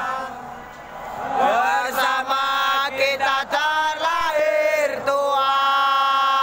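Football supporters singing a chant together in the stands, loud, with long held notes.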